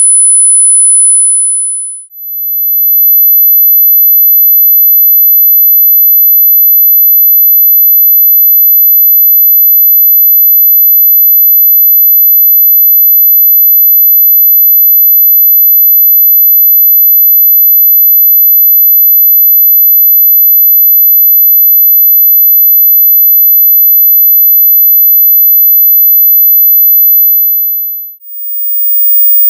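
Pure sine-wave test tone: 10,000 Hz fading out about two seconds in, then a steady, loud 12,000 Hz tone that fades out near the end as a 15,000 Hz tone begins.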